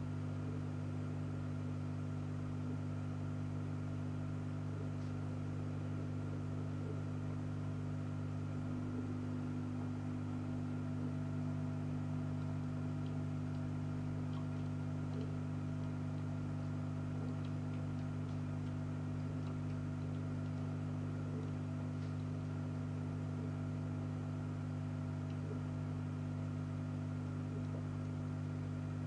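A steady mechanical hum made of several constant tones, with a few faint ticks.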